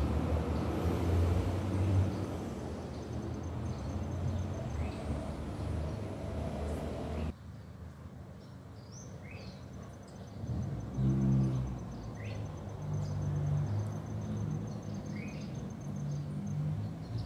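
Outdoor ambience: a low rumbling noise for the first seven seconds that drops away abruptly. Then comes a fast, high-pitched trill with a few short rising bird chirps, and a low hum from about eleven seconds in.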